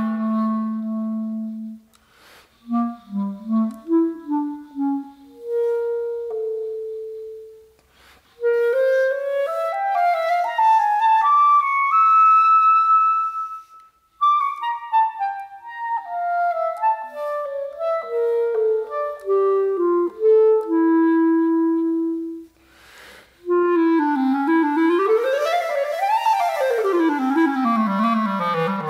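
Solo clarinet playing a free, cadenza-like passage: a single line of runs that climb and then fall back, broken by short pauses between phrases, ending in a quick rising and falling flourish.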